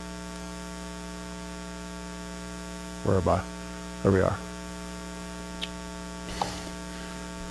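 Steady electrical mains hum in the microphone and sound system. About three and four seconds in, a man's voice gives two brief murmurs, and a couple of faint clicks follow.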